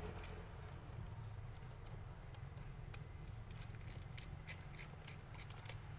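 Faint scattered clicks and scratches of a small iPhone pentalobe screwdriver turning out the bottom screws of an iPhone 7 Plus, over a low steady hum.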